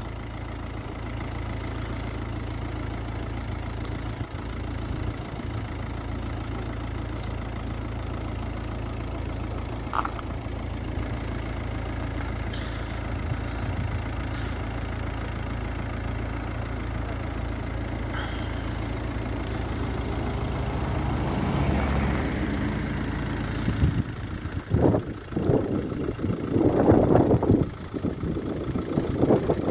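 Steady low rumble of a vehicle engine running. In the last few seconds it is joined by loud, uneven bursts of noise.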